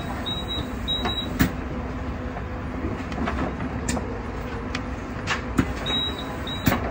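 Inside a Hong Kong double-decker tram standing at a stop: a steady low hum and rumble, with scattered sharp clicks and knocks, and pairs of short high beeps near the start and near the end.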